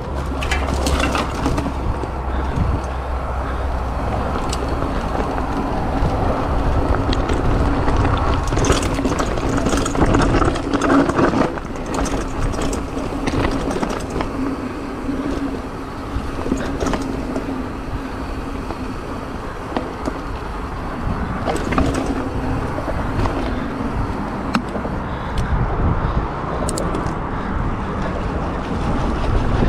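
Mountain bike riding fast down a rocky dirt trail: tyres rolling over dirt and loose stones, with frequent sharp clicks and knocks from the bike rattling over bumps.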